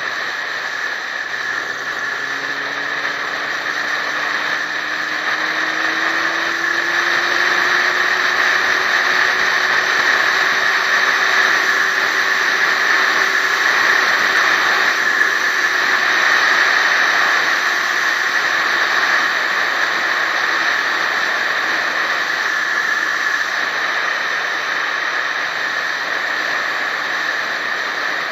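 Steady rush of wind and road noise from a vehicle driving along an asphalt road, growing louder toward the middle, with a faint hum rising slowly in pitch over the first ten seconds or so.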